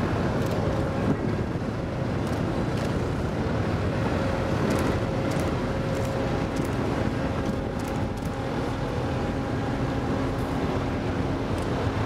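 Steady low rumble and a constant droning hum of quayside machinery running, with a few faint sharp clicks scattered through.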